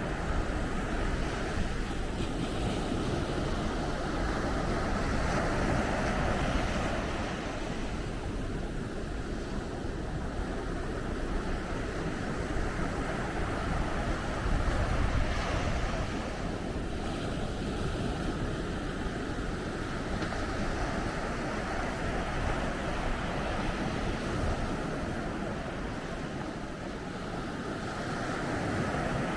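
Sea waves breaking and washing onto a beach: a continuous rush of surf that swells and eases every several seconds.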